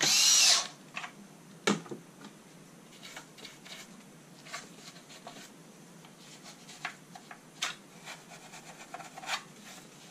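A small cordless electric screwdriver runs for about half a second, driving a screw into the plastic housing of a moving-head light. It is followed by one sharp knock and scattered light clicks and taps as the housing is handled.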